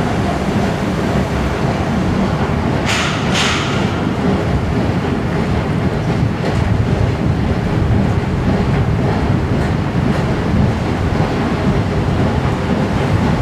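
Steady low rumble of road traffic and escalator machinery, with two short sharp noises about three seconds in.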